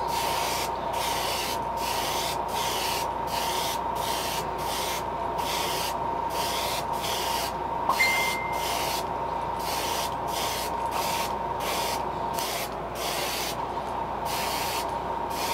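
Iwata HP-CS airbrush hissing as it sprays a thin coat of paint onto a crankbait, the air cut on and off in short, quickly repeated pulses as the trigger is worked.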